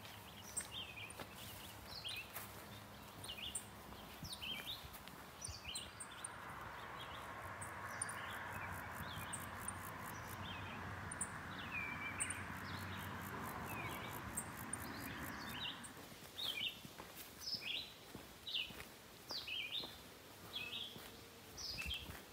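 Songbirds chirping, many short quick notes throughout, over a soft rushing noise that swells for about ten seconds in the middle and then fades.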